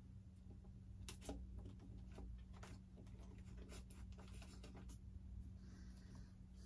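Faint, scattered clicks and scratching from hand work on a foam RC model jet, over a steady low hum.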